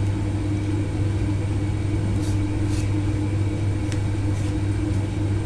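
A steady low hum, with a few faint scratches of a ballpoint pen writing on paper.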